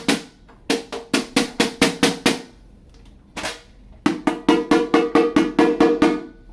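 A Dynasty DFX 14-inch snare drum with an old Remo head struck in quick, even runs of single strokes, about seven a second, each hit ringing. There are two runs with one lone hit between them. A loose nut inside the shell adds a little rattle.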